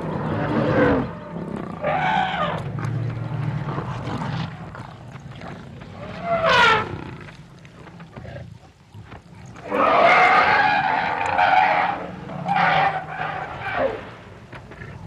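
African elephants trumpeting again and again as they charge lions at a kill, about five brassy calls that rise and fall in pitch, the longest about ten seconds in, over low growling.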